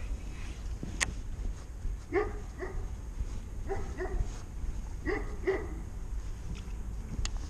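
A dog barking: three double barks, each pair about a second and a half after the last, over low wind rumble on the microphone.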